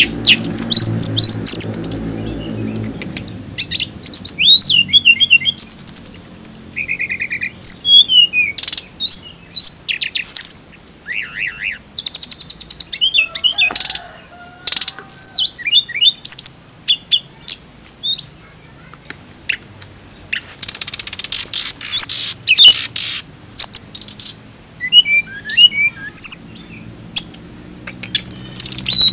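A hill blue flycatcher sings a long, varied song of rapid high whistles, quick up-and-down slurs and fast trills, with harsher rasping notes about twenty seconds in.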